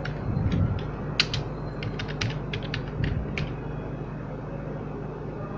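Computer keyboard being typed on in quick, irregular key clicks that stop about three and a half seconds in, over a low steady hum.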